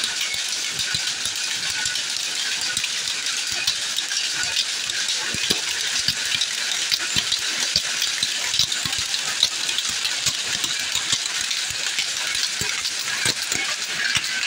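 Shuttle power looms running in a weaving shed: a steady, dense clatter of rapid clicks and rattles from many looms at once.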